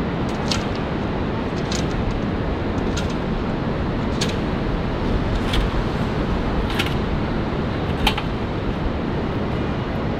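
Steady outdoor noise with wind on the microphone, and a sharp click about every second and a quarter, seven in all.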